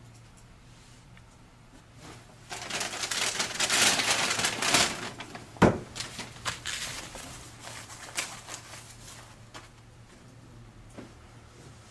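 A paper bag rustling and crinkling loudly for a couple of seconds as it is opened and handled, then one sharp click and a few lighter knocks.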